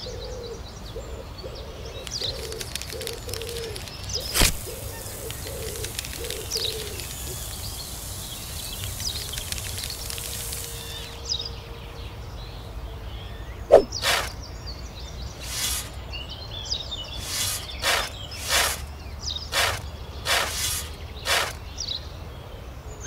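A small paper packet of cement being torn open and the powder poured onto a sand pile, with crackling and a sharp click early on. In the second half comes a run of short scrapes, about two a second, from a miniature trowel working the pile, with birdsong faintly behind.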